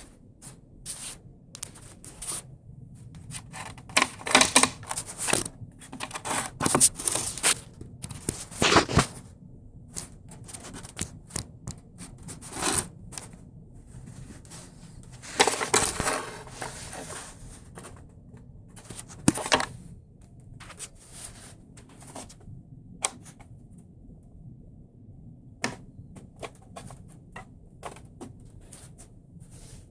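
A homemade animatronic figure's mechanism working, with irregular mechanical clicks, clacks and knocks and several short bursts of hiss-like noise, busiest in the first ten seconds and again about halfway through.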